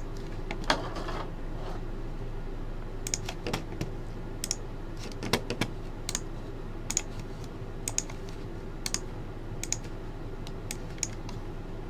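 Computer keyboard typing and clicking: short, irregular clicks scattered through, over a steady low hum.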